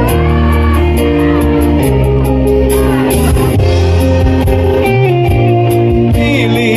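Live band music played through a PA system: electric guitar and bass over a steady drum beat, with a short sung phrase near the end.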